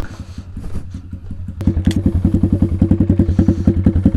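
Taotao DB17 125 pit bike's single-cylinder four-stroke engine idling with an even putter. It is quieter for the first second and a half, then comes a sharp knock and the idle is suddenly louder.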